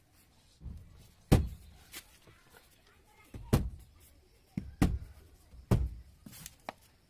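A series of irregular knocks and heavy thuds, each sharp and short, with the loudest about a second in, in the middle and near five seconds.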